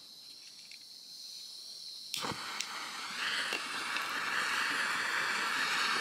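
A burner lit with a sharp click about two seconds in, followed by a few lighter clicks and a steady flame hiss that grows louder. The flame is heating the thermoelectric module of a homemade fireplace fan for its first run.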